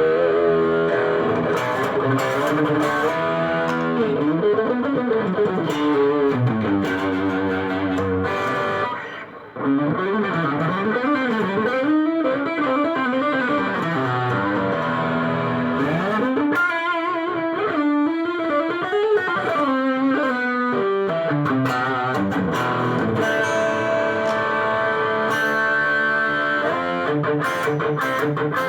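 Chinese-made Ibanez JEM-style electric guitar playing lead lines with notes that glide up and down in pitch, with a brief drop-out about nine seconds in.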